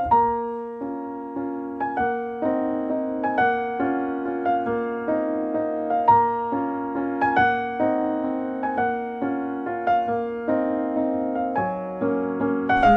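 Background music: a solo piano playing a repeating pattern of notes at a moderate pace, each struck note ringing on under the next.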